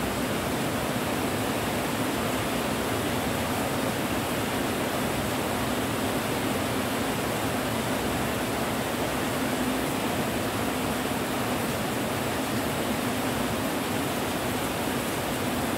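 Steady rain falling: a continuous, even hiss with no separate drops or thunder standing out.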